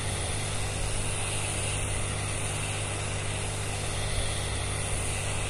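Hot air rework gun blowing steadily onto the legs of the LG XD Engine chip on an LED TV mainboard, a constant rush of air with a low hum. It is reflowing the chip's solder, the chip being the usual culprit when the standby light blinks once and the set dies.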